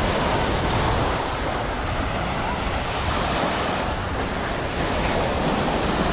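Sea waves washing onto a sandy beach in a steady rush, with wind buffeting the microphone.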